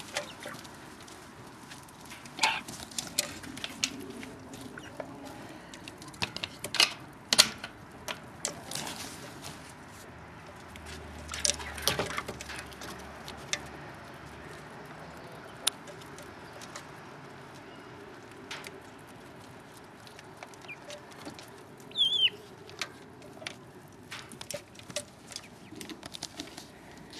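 Young Cochin chickens pecking at a feed dish, with many irregular sharp taps and clicks, and one short high chicken call about two thirds of the way through.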